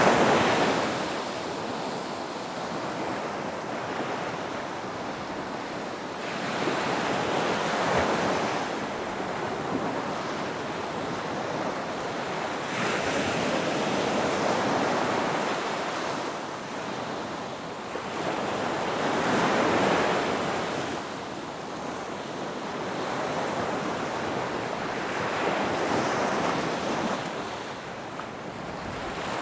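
Ocean surf: waves breaking and washing up the shore in repeated swells, one every five or six seconds, over a constant hiss of water and wind.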